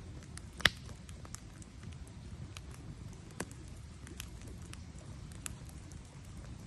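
Campfire crackling, with a steady low rumble and scattered sharp pops, one loud pop about half a second in.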